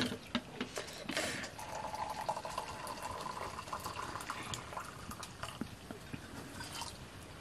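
Liquid poured from a metal kettle into steel tumblers: a steady splashing stream whose filling tone runs from about a second and a half in until about five seconds, with a few light clinks of metal.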